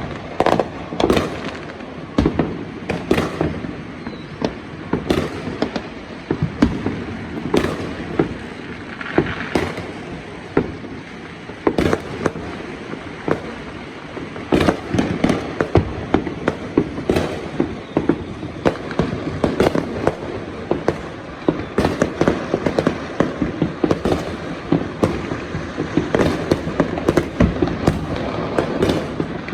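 Fireworks and firecrackers going off all around: a dense, constant barrage of overlapping bangs and pops, some sharp and near, others distant, over a continuous rumble.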